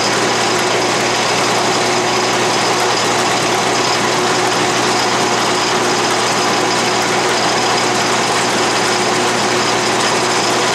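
Atlas lathe running steadily, its spindle turning a 5/16-inch end mill that is taking a light cut across the end of quarter-inch flat stock held in the milling attachment's vise, squaring up the work.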